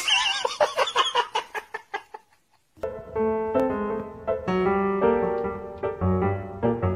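About two seconds of rapid, quavering pitched pulses, roughly seven a second, then a short gap and a simple piano-like keyboard melody of held notes.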